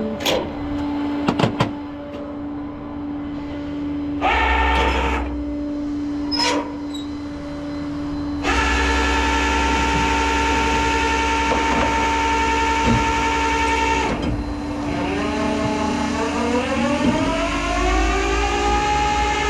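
Tow truck running its hydraulics: a steady pitched pump whine over the engine, with a few sharp clicks in the first seconds, a short burst a few seconds later, then a sustained drone whose pitch rises steadily near the end as the engine speeds up under load.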